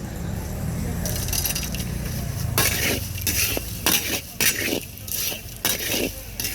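A metal spoon clinking and scraping in a steel vessel as bhel bhuja is mixed, about eight sharp strokes starting a little past two seconds in, over a low rumble of street traffic.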